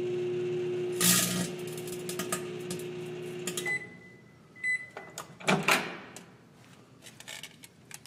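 Galaxy microwave oven running with a steady hum while a CD inside crackles and snaps, sharpest about a second in: the CD's thin metal layer is arcing. The oven stops after about three and a half seconds and gives two short end-of-cycle beeps. A loud clunk of the door being opened follows, then light clatter as the disc is handled.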